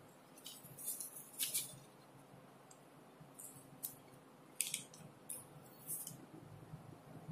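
Gold paper strips crinkling and rustling in short, irregular bursts as they are folded by hand.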